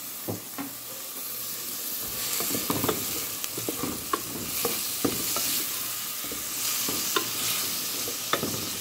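Diced tomato, onion and garlic sizzling in hot oil in a metal pot, stirred with a wooden spoon that knocks against the pot now and then. The sizzle grows louder about two seconds in.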